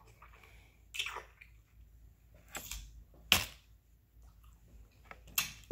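Wet mouth sounds of eating seafood: a few short smacks and slurps about a second apart, the loudest just over three seconds in.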